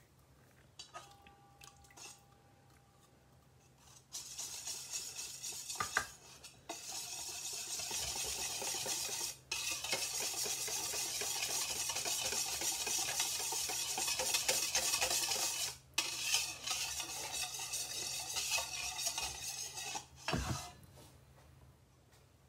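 Wire whisk beating thin liquid batter in a metal bowl, with rapid strokes against the bowl. It starts about four seconds in and goes in several spells with brief pauses, stopping shortly before the end.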